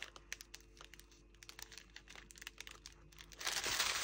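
Small clear plastic packets of acrylic diamond painting drills crinkling as they are picked up and sorted by hand. Scattered light crackles at first, then a denser, louder bout of crinkling near the end.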